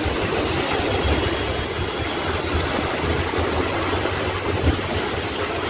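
Steady rush of churning floodwater with a continuous low rumble underneath, and a single dull thump about four and a half seconds in.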